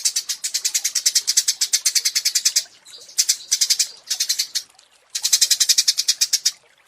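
Small songbird giving a fast, dry rattling trill of about a dozen clicks a second, in three bursts with short pauses between them.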